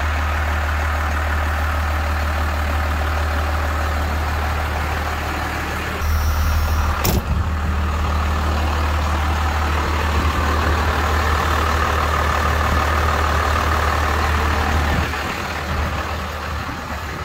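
First-generation Cummins 5.9-litre inline-six diesel idling steadily, warmed up. A single sharp click is heard about seven seconds in.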